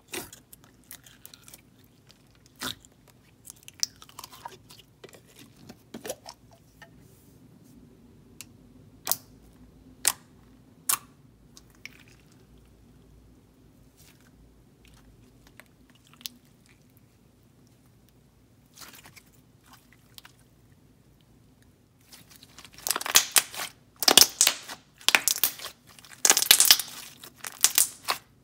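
Glossy, clicky clear slime (Elmer's Retro Pop) being handled: fingers poking it give scattered soft clicks and pops for the first twenty seconds or so, then hands pressing and squishing it make loud, repeated wet crackling squelches near the end.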